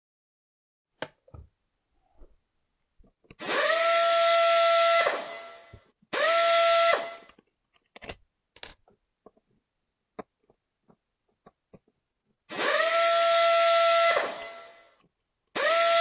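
Handheld cordless driver backing out the mounting screws of a wall light switch: four short runs of its motor, each spinning up to a steady whine for one to two seconds. Two runs come close together about three seconds in and two more near the end, with small clicks of handling between.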